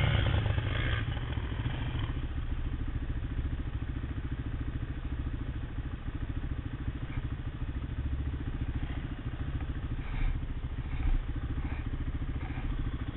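Quad (ATV) engine idling with a fast, even pulse, louder for the first two seconds or so as an engine revs. Two brief knocks come about ten and eleven seconds in.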